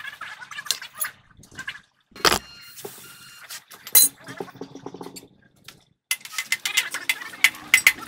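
Irregular metal clicks, knocks and scraping from hand work on a truck's wheel hub and brake drum, with one heavier knock a couple of seconds in and a sharp click about four seconds in.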